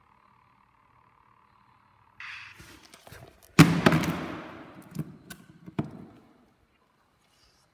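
Handling noise on a phone's microphone: a rustle, then one loud knock about three and a half seconds in that fades over about a second, followed by a few short clicks.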